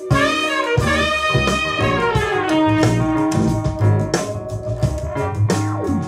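Recorded soul-jazz music playing through hi-fi speakers: an instrumental break with a horn solo line gliding over bass and drums.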